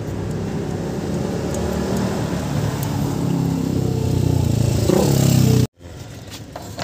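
A motor vehicle engine running steadily and growing louder, then cut off abruptly near the end.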